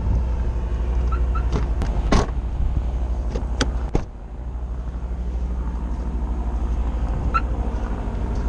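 A vehicle engine running steadily with a low hum, with a few sharp clicks and knocks between about one and a half and four seconds in.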